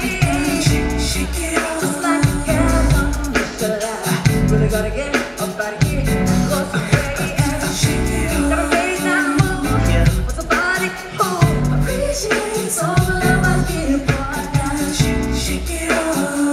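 A female pop singer singing live into a microphone over her band's pop accompaniment.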